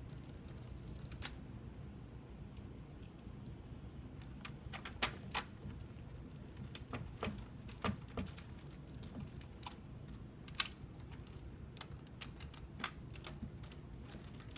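Irregular light clicks and taps of a screwdriver and small screws against the plastic housing of a Kronos 4500 time clock as its main board is screwed down, a few louder clicks among them.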